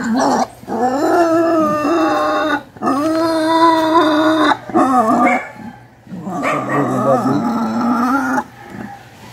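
An animal's long, drawn-out cries, four in a row with short breaks between them.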